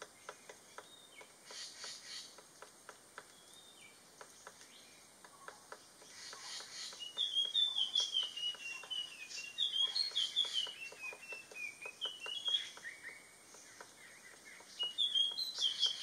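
White-browed piculet tapping inside a hollow bamboo stem as it bores out its nest: a run of light taps, a few a second. From about seven seconds in, a bird gives a string of high chirping calls, the loudest sound, with more just before the end.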